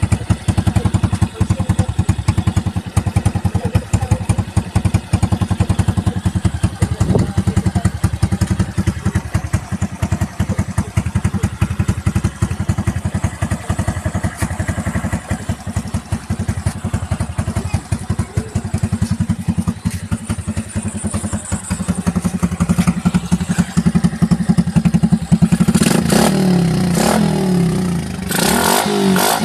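Suzuki Shogun 125's single-cylinder four-stroke engine, fitted with a 28 mm Keihin carburettor and an open breather filter, idling with a fast, even exhaust beat. Near the end it is revved up and down several times.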